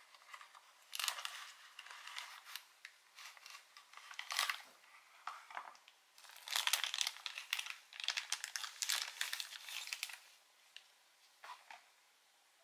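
Cardboard box handled and opened, then a thin clear plastic bag crinkling and rustling in irregular bursts as a folding knife is unwrapped from it, the crinkling loudest in the second half.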